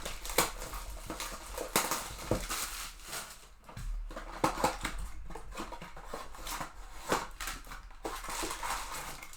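A sealed trading-card box being opened by hand: crinkling wrapper, rustling and tapping of cardboard and foil packs, with many irregular sharp clicks and crackles.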